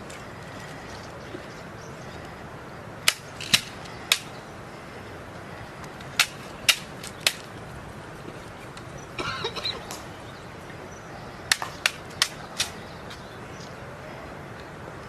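Rifles being handled in drill during a rifle inspection: sharp clicks and slaps come in quick groups of three to five, with a short rattle about nine seconds in, over a steady background hiss.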